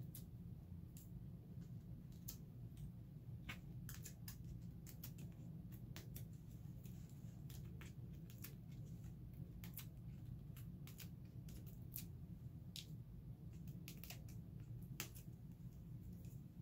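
Faint, irregular little clicks and ticks of fingernails picking at and peeling the release backing off 3D foam tape squares stuck to a paper die-cut, over a low steady hum.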